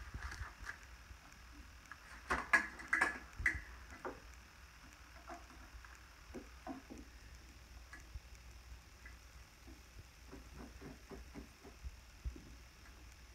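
Scattered light clicks and taps, with a cluster of louder knocks about two to three and a half seconds in and fainter, quicker ticking later on.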